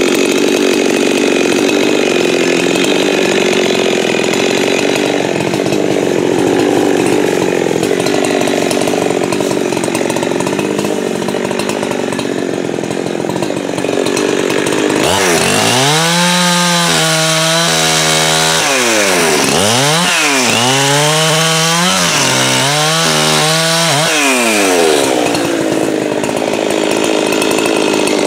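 Husqvarna 562 XP two-stroke chainsaw running: first at a low, rough idle, then revved hard for about ten seconds in the middle, its high engine note dropping and recovering several times before falling back to idle.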